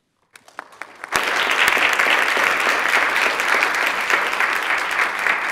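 Applause from the people in a legislative chamber: a few scattered claps at first, then steady clapping from many hands from about a second in.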